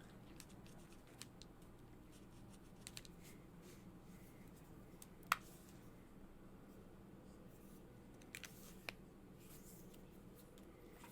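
Quiet colouring with felt-tip markers on paper, with scattered soft clicks and taps. There is one sharper click about five seconds in and a few more near the end.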